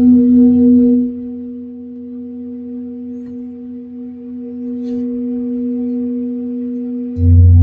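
Large metal singing bowl ringing with one steady tone and its overtones, loudest in the first second, then sustaining and swelling slightly. Just before the end a loud low hum joins in.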